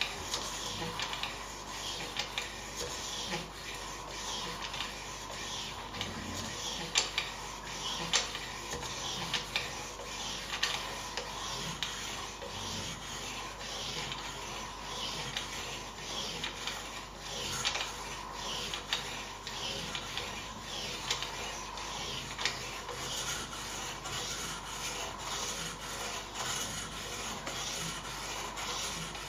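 A knife blade being stroked by hand against a fine 1500-grit sharpening stone on a guided rod sharpening system. The stone scrapes along the edge in a steady run of repeated short strokes, the finishing stage of sharpening.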